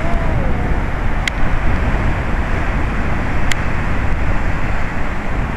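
Steady noise of surf churning against a rocky sea cliff, mixed with wind buffeting the microphone.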